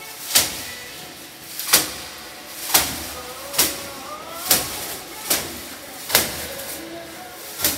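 A bundle of dry branches slapped against a large canvas, a sharp swishing smack about once a second, eight strikes in all.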